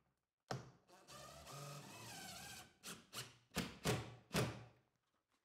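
Cordless drill-driver driving a screw overhead through a metal ceiling strip. The motor runs for about two seconds with its pitch wavering under load, then gives five short bursts as the screw is run home.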